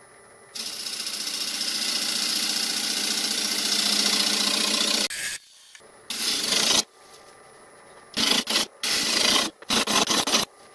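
Bowl gouge cutting a spinning green fruitwood bowl on a lathe, peeling off long ribbons of shavings: one steady cut of about four and a half seconds, then several short cuts of under a second each.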